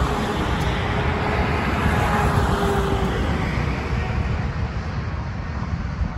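Rumbling vehicle noise, as from passing traffic, that holds steady and then fades over the last few seconds.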